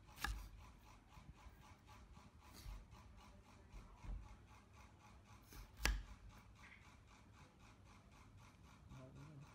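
A kitchen knife cutting through a peeled pineapple on a wooden cutting board: faint rasping slicing, with two sharp knocks on the board, one just after the start and a louder one about six seconds in.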